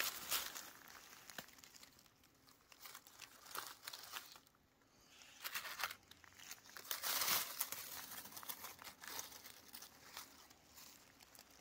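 Dry oak leaf litter rustling and crackling as a hand brushes and pushes the leaves aside, in irregular bursts that are loudest at the start and again a little after the middle.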